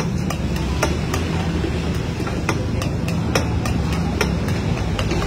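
Metal spatula clanking and scraping against a large wok as a big batch of fried rice is stirred and turned, with sharp clinks coming unevenly two to three times a second. A steady low rumble runs underneath.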